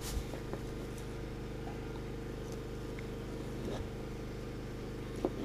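Steady low hum of a running engine, even and unchanging, with a few faint clicks and knocks.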